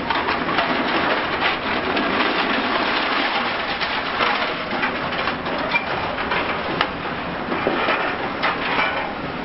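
Continuous demolition crackle as a high-reach excavator breaks up reinforced concrete: crunching and a dense clatter of many small knocks as rubble falls.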